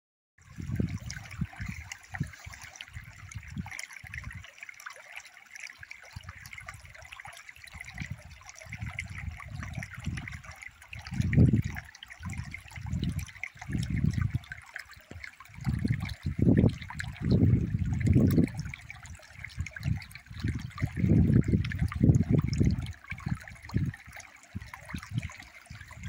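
A shallow stream babbling steadily over pebbles and stones. Irregular low rumbles come and go over it, growing stronger in the second half.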